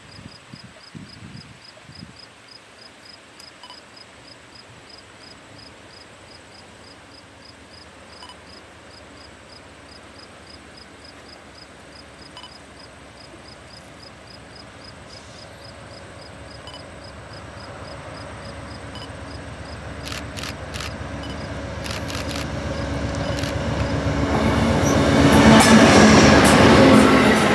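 Amtrak passenger train led by a GE Genesis diesel locomotive approaching, growing steadily louder, then passing close by. The locomotive's engine and the wheels clicking over the rails are loudest near the end.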